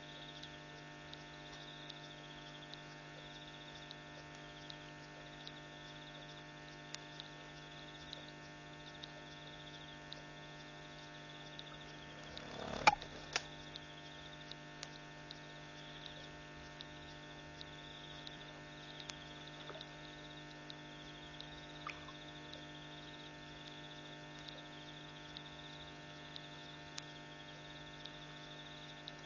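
Steady electrical mains hum, with a faint wavering high-pitched whine above it and scattered faint ticks. A sharp crackle comes about 13 seconds in, the loudest sound.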